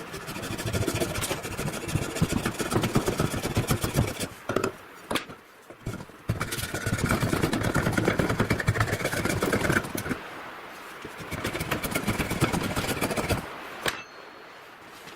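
Homemade mild-steel draw knife shaving wood: runs of rough, scraping cutting strokes, broken by a few short pauses.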